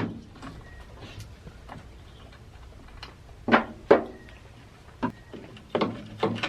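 Sharp clicks and knocks of old chainsaw parts being handled and worked by hand during a teardown: one click at the start, two louder knocks about halfway through and a quick cluster near the end.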